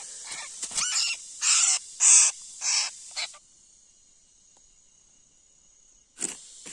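A bird calling: about five loud, short calls in quick succession over the first three seconds. After that only a faint, steady high hiss remains.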